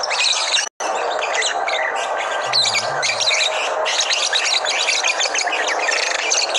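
Many caged lovebirds chirping and chattering over one another without a break. The sound cuts out completely for an instant just under a second in.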